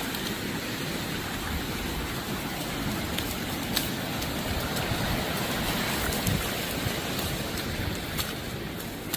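Steady rush of surf washing on the beach, with a few faint clicks.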